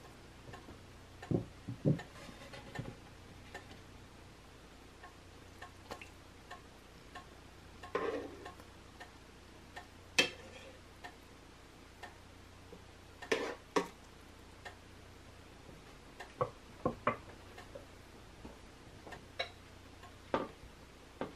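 Scattered clicks and knocks of a silicone spatula and metal spoon against a pan as bagels are turned in a pan of hot water during boiling, with a few short splashy scrapes in between.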